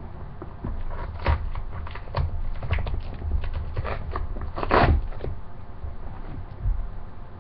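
Hands handling a cardboard shipping box: irregular crackles, scrapes and light knocks of the cardboard, with a short, louder rip near the five-second mark as the box's tear strip is pulled open.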